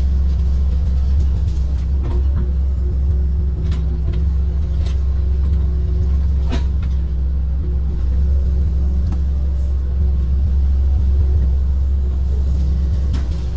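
Kobelco amphibious excavator's diesel engine running steadily while the arm digs, heard from the operator's cab as a loud, even low drone. A few sharp cracks and knocks stand out now and then.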